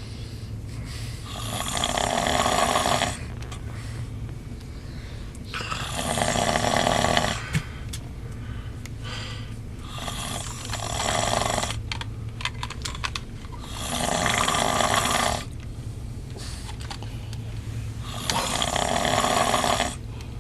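A man snoring loudly: five long, rasping snores about four seconds apart, with a steady low hum underneath.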